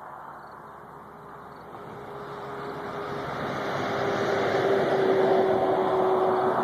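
Tractor engine running, growing steadily louder over a few seconds with a steady hum, then holding near its loudest.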